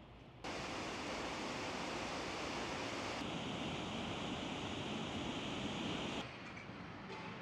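Ocean surf: waves breaking and washing around a breakwater of rocks and concrete blocks, a steady rushing noise that starts suddenly about half a second in and drops away suddenly about six seconds in.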